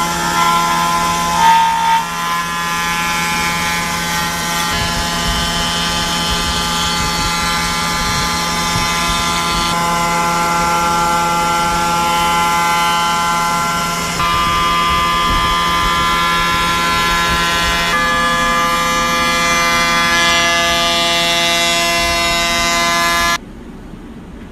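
Table-mounted router spinning a bearing-guided bit and cutting hardwood: a steady, loud motor whine with cutting noise. It stops abruptly about a second before the end.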